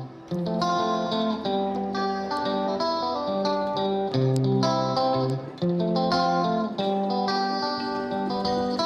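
Background music: a plucked guitar playing a melody, one note after another.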